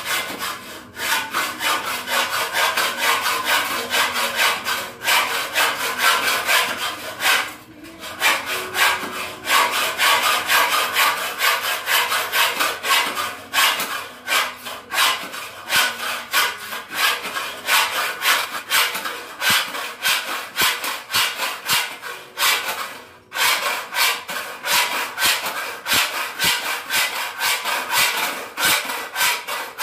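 Hand saw cutting through a wooden board in steady back-and-forth strokes, about two to three a second, with two brief pauses.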